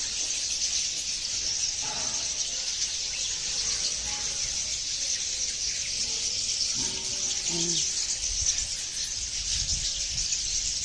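Many birds chirping at once in a dense, steady, high-pitched chorus.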